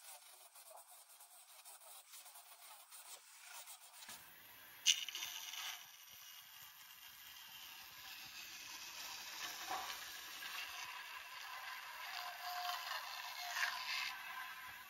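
Faint scraping for about four seconds, then a band saw cutting a narrow strip of old wooden door moulding. There is a sharp crack about five seconds in, followed by steady sawing noise.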